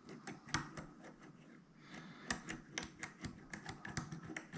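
Light, irregular metallic clicks of a dimple pick working the pins inside a dimple lock cylinder under tension, sparse at first and busier from about halfway through.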